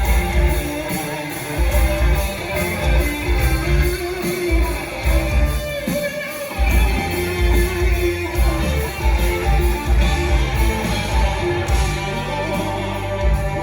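Live rock band playing an instrumental passage, with guitar to the fore over bass and drums; the low end drops out briefly a few times.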